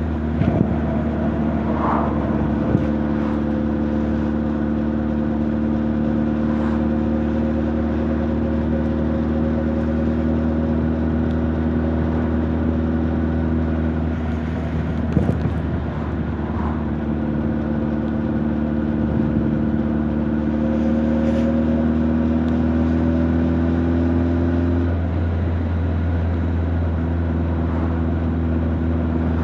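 Honda CB1300 Super Bol d'Or's inline-four engine and exhaust under way. The note climbs slowly, changes about halfway through with a few short knocks, climbs again and drops back near the end.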